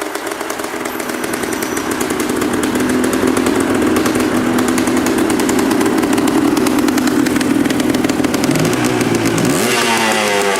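Honda CRM250AR's two-stroke single-cylinder engine with a Mugen silencer, running steadily and growing louder over the first few seconds, then revved up and down a few times near the end.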